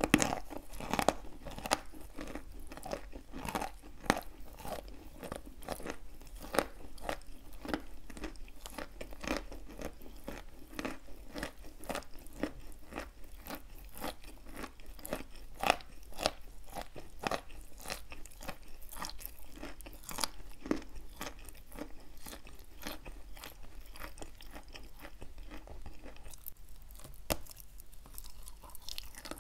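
Close-up chewing of wet chalk coated in paste and crumbs: a dense run of small wet crunches. It goes quieter briefly near the end, then a fresh bite into the bar gives louder crunches.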